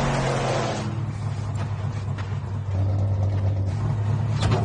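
Car engine noise: an engine note falling in pitch with a loud rush of noise through the first second, then a steady low engine drone with a few light clicks.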